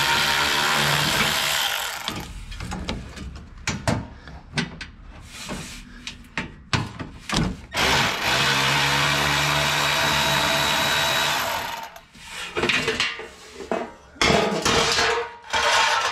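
Power drill spinning out the screws that hold an exhaust heat shield. It runs twice for a few seconds each, at the start and again about eight seconds in, with clicks and rattles of handling in between.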